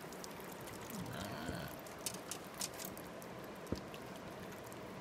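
River water rushing and splashing over rocks, a steady wash, with scattered faint clicks and one sharper tap late on.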